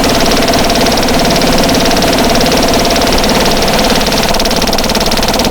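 Circuit-bent glitch pedal, clones of an EarthQuaker Devices Life Pedal and a DOD Carcosa fuzz wired into a feedback loop, self-oscillating into a loud, fast-stuttering buzzing drone with a steady tone held above it.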